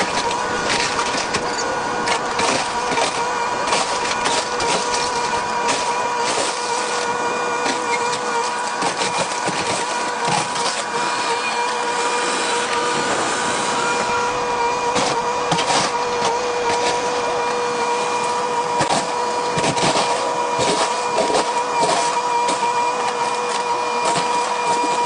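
Excavator running with a steady whine, over frequent cracks, knocks and crunches as it breaks up the house's structure.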